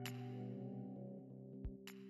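Background music with held notes and a few sharp ticks, fading out.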